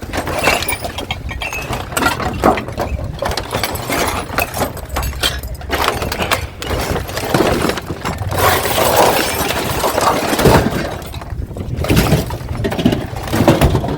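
Continuous clattering and crashing of junk being shifted and tossed about in a skip, with many sharp knocks and cracking, shattering impacts.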